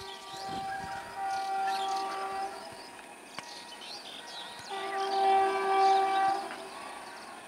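Train horn sounding two long blasts: the first about two and a half seconds, the second nearly two seconds and louder.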